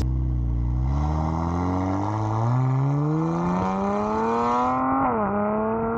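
Kia Stinger GT2's twin-turbo 3.3-litre V6 accelerating hard, its pitch climbing steadily for about five seconds, then dropping suddenly with an upshift and climbing again.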